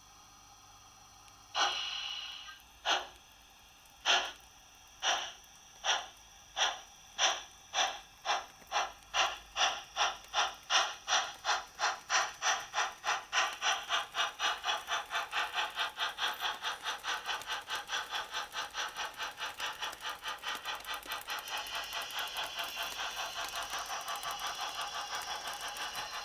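Sound module of an H0 model of a French steam locomotive pulling away: a short hiss of steam, then exhaust chuffs that start about a second apart and speed up steadily until they run together into a fast, even beat.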